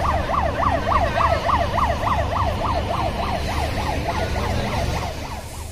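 Fire engine's siren in a fast yelp, its pitch sweeping up and down about three times a second and fading near the end, over the low rumble of an engine.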